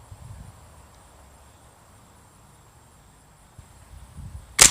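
Crickets chirping steadily in the background, then near the end a single sharp crack of a Benjamin Prowler nitro-piston .177 air rifle firing a pellet.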